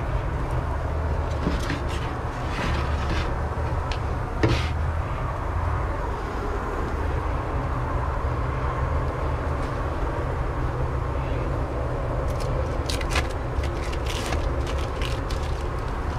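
Smash burgers cooking on a flat-top griddle: a steady hiss over a low rumble, with a sharp knock about four seconds in and a run of clicks and scrapes near the end.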